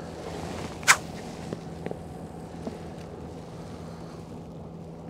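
A boat's motor humming steadily under a light, even background noise, with one sharp, brief swish about a second in and a few faint clicks.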